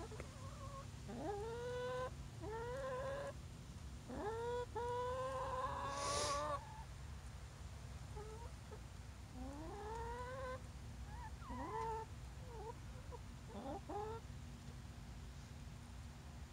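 Hens giving a series of drawn-out calls, each sliding up in pitch and then held, about seven in all, the longest lasting over two seconds about four seconds in. A short scratchy noise comes about six seconds in.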